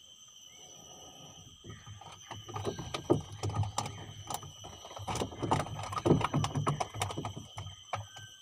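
Irregular knocks, clatter and rustling on a wooden boat's planks as a caught fish is handled in the boat, thickest from about two and a half seconds in until just before the end.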